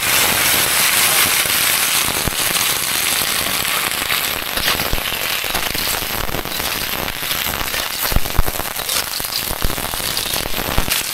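Undulated surf clams stir-frying in hot lard and garlic: a loud, continuous sizzle and crackle, loudest at the start and easing slightly, with a few scattered knocks.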